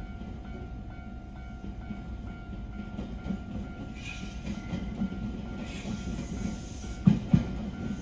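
Japanese level-crossing alarm ringing in a steady two-tone pulse about twice a second while an approaching electric commuter train's wheel and rail rumble grows louder. Near the end come heavy clacks of the train's wheels over the rail joints as it reaches the crossing.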